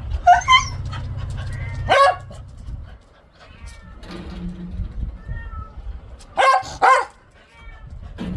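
A cat with a cold sneezing: a series of short, sharp sneezes, ending in a quick pair near the end.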